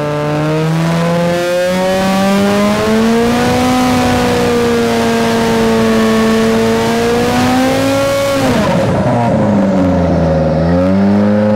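Light aircraft's engine and propeller in a ground run-up during a propeller test. The engine revs up about a second in and holds at high power with a loud, steady propeller drone. It is throttled back about eight and a half seconds in, then revs up again briefly before the sound ends abruptly.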